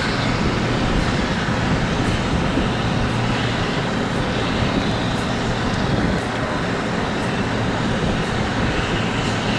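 A running engine, steady, with a low constant hum under an even rush of noise.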